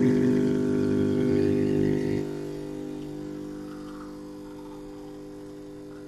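Silvercrest SSMS espresso machine's vibratory pump humming steadily during a shot extraction. The hum drops in loudness about two seconds in, then holds at an even, quieter drone.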